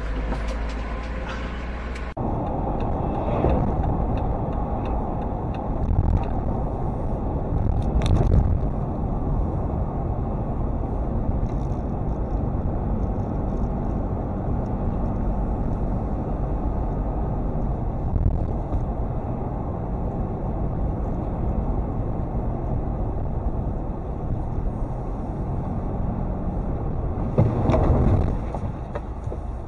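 Steady engine and road noise of a car driving at around 24 mph, picked up inside the cabin by a dashboard camera, with a couple of brief knocks.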